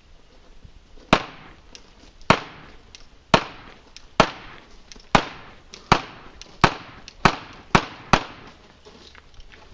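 A rapid string of ten gunshots, each a sharp crack with a short echo, coming faster and faster from about a second in until near the end.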